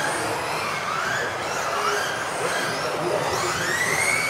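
Electric motors of several 1:10 RC off-road buggies whining, their overlapping pitches sweeping up and down as the cars accelerate and brake, with one long rising whine near the end.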